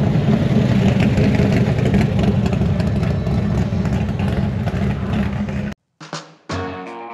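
A car engine running loudly and steadily, with a deep rumble, cuts off abruptly about five and a half seconds in. Guitar music begins near the end.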